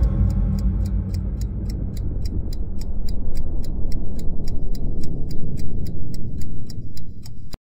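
Ticking-clock effect at the close of the song's recording, sharp even ticks about four a second over a low fading tone from the music; it cuts off suddenly near the end.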